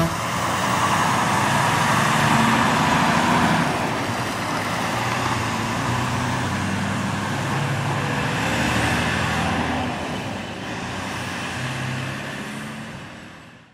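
Diesel engine of a semi-truck pulling a loaded 53-foot trailer, running under load as the rig moves off, with tyre and road noise. The sound eases off in the last few seconds and fades out at the end.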